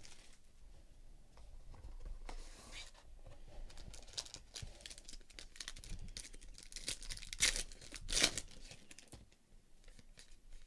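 Crinkling and tearing of a trading-card box's inner plastic wrapping as it is pulled open, with cards rustling as they are handled. Two louder crinkles come near the end.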